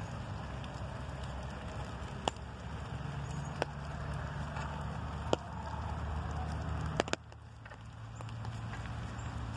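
Outdoor ambience of a walk in light rain: a steady low rumble with a faint wash above it, broken by a few sharp clicks, two of them close together about seven seconds in.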